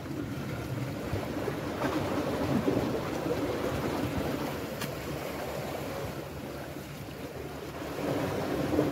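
Sea water washing against the shore rocks, with wind on the microphone: a steady rushing noise.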